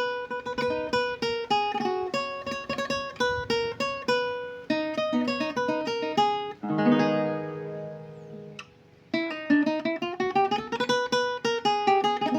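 Requinto guitar played solo: quick picked single-note runs, then a chord about six and a half seconds in left to ring and die away, a brief pause, and fast picking again.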